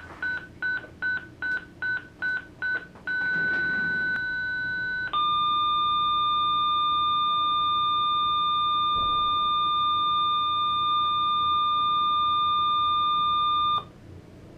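Zoll ProPaq MD defibrillator charging to 200 joules: short beeps about two and a half a second, then a steady tone from about three seconds in. At about five seconds it switches to a louder, lower continuous charge-ready tone, the unit charged and armed, which cuts off shortly before the end.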